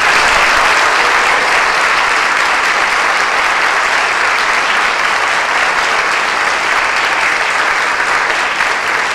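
Audience applauding, loud and steady throughout.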